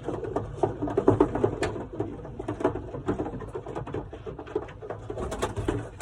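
Young racing pigeons cooing, with scattered sharp clicks and scuffs among the calls.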